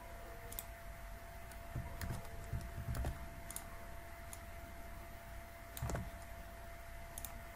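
Faint, scattered clicks of a computer keyboard and mouse: a few separate keystrokes and clicks, with duller knocks about two to three seconds in and again near six seconds.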